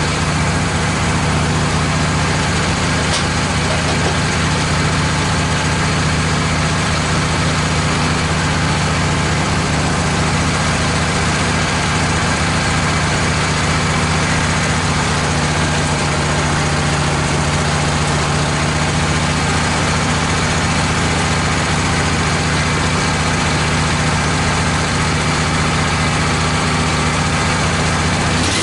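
Woodmizer LT15 portable sawmill's engine running steadily at a constant speed, driving the band-saw blade.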